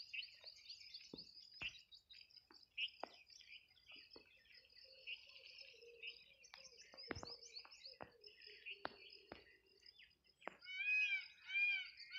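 Small birds chirping and twittering on and off, with scattered light clicks. Near the end, three short, louder calls, each rising and falling in pitch.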